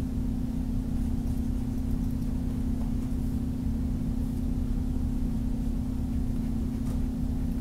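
Steady low background hum, unchanging throughout, with no other clear sound.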